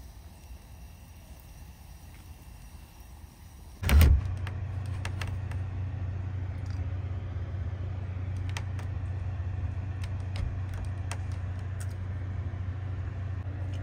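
Quiet background for about four seconds, then a sudden loud thump and a steady low motor hum that runs on, with scattered light clicks.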